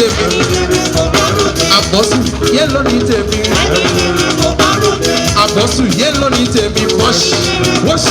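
Upbeat music with singing over drums and percussion, at a steady beat.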